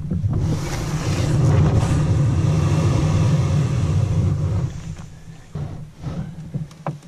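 Wind buffeting the camera microphone, a steady low rumble that eases off about five seconds in, followed by a few light knocks.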